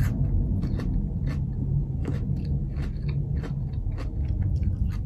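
Close-mic chewing of a crisp radish: a run of short crunchy clicks, several a second. Underneath lies a steady low rumble, the drone of airplanes overhead.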